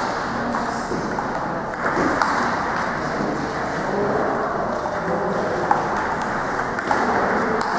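Celluloid table tennis balls clicking off bats and tables, many short irregular clicks, over a steady hall background.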